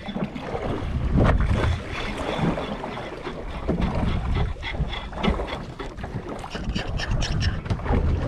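Wind gusting over the microphone on a small fishing boat at sea, an uneven low rumble, with water lapping against the hull and several light knocks.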